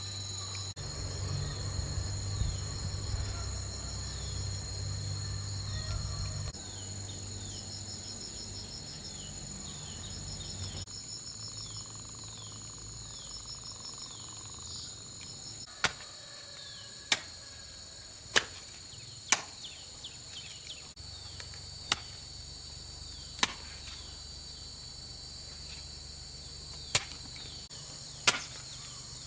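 Insects chirring steadily in high tones, with short descending bird chirps and a low rumble over the first few seconds. From about halfway, eight sharp chopping strikes, a second or a few seconds apart.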